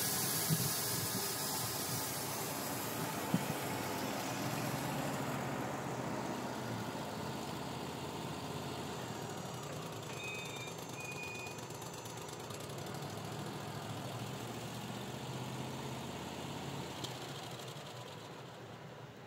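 Wood-Mizer LT35HD sawmill's engine running while the sawhead drives down its track, the sound fading gradually as the head moves away.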